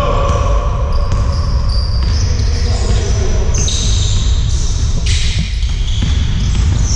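Basketball game in a sports hall: a basketball being dribbled on the court and sneakers squeaking as the players move, over a steady low rumble.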